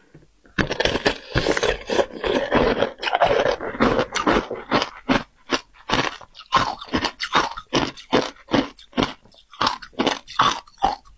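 Close-miked crunching of a block of shaved ice topped with passion fruit pulp as it is bitten and chewed: a dense run of crunches for the first few seconds, then steady chewing crunches about two or three a second.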